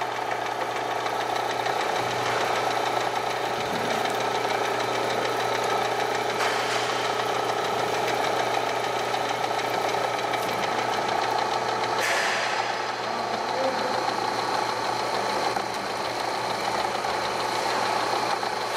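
Drill press running steadily, its twist bit boring into a steel part.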